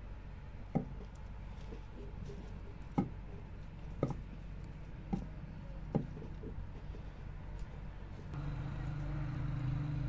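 About five sharp knocks, one to two seconds apart, over a steady low hum; about eight seconds in, a louder steady hum with a low tone begins.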